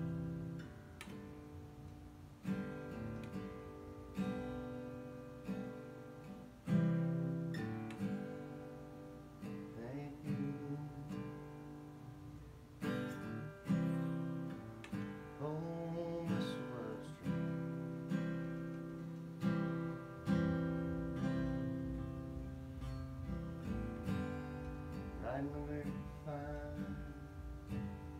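Solo acoustic guitar, picked and strummed with a steady run of notes and chords that ring out after each sharp attack.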